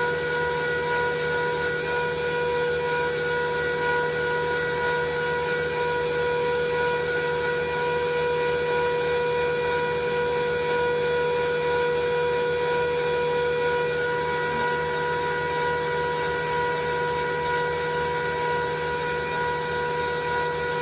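Felder Format 4 thickness planer running at steady speed, a constant whine over an even mechanical hum.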